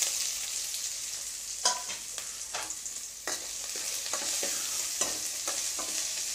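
Chopped small onions (shallots) sizzling in hot oil in a stainless steel kadai as they are sautéed, with a steady hiss. A steel ladle stirs them, scraping and clinking against the pan several times.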